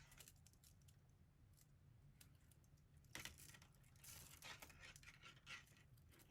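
Near silence with faint handling noises: soft rustles and small clicks, the clearest about three seconds in and a few more near the end, over a low room hum.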